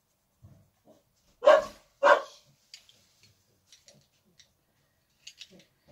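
A dog barking twice, loudly, about half a second apart, followed by a few faint ticks and taps.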